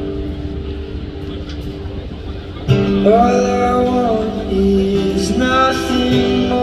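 Acoustic guitar playing, then a man starts singing over it about a third of the way in, his voice louder than the guitar.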